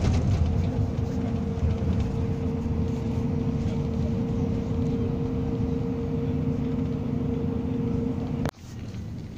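Cabin noise of a moving bus: a steady engine and road drone with a steady whine in it. About eight and a half seconds in it drops suddenly to a quieter drone.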